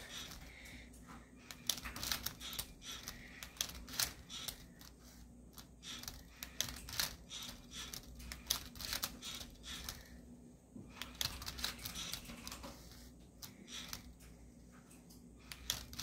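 Lego Boost Rubik's cube solver at work: its motors and plastic Lego parts turning and tipping the cube, heard as a run of irregular plastic clicks and clatters, with a short lull about ten seconds in.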